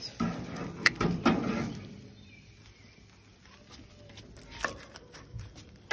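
Metal tongs clicking and knocking against the grill grate and a wooden board as grilled chicken pieces are lifted off the grill. A few sharp clicks come in the first two seconds, then it goes quieter, with one more click near the end.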